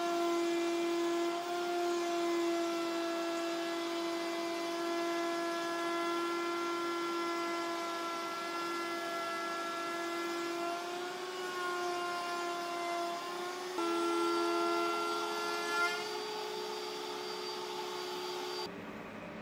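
Table-mounted router with a straight bit running at a steady high whine while plywood is fed past it along the fence. The pitch sags slightly under the cut about eleven seconds in, steps a little higher about fourteen seconds in, and the whine stops shortly before the end.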